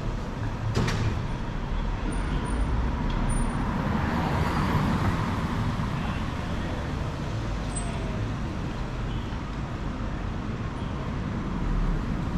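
City street traffic noise: a steady rumble of passing cars and buses, swelling a little around four to five seconds in, with a short click about a second in.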